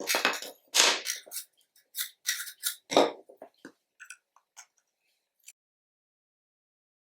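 Metal parts of an antique carriage lamp clinking and scraping as they are worked with hand tools. A quick run of clanks and scrapes fills the first few seconds, then a few faint clicks follow.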